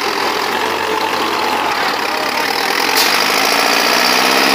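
Diesel tractor engines running hard under heavy load as two tractors pull against each other on a cable. The engine note rises about three seconds in.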